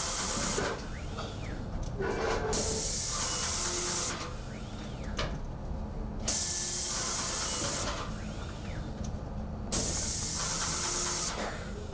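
Painting robot's paint sprayer hissing in bursts of about a second and a half, roughly every three and a half seconds, as it paints the wall in passes. Between bursts a fainter whine rises and falls.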